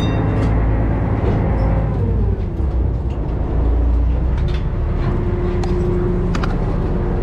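Small ferry's engine running with a low, steady drone; its pitch drops about two seconds in, then holds level, with scattered clicks and knocks on top.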